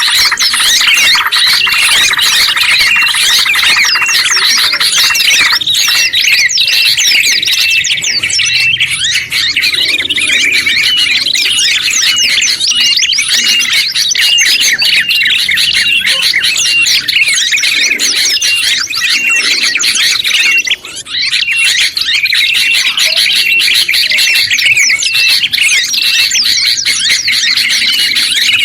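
A dense mix of songbirds calling all at once: tropical bulbuls, tailorbird and white-eye chattering and whistling in quick overlapping chirps, with no pause except a brief dip about two-thirds of the way through.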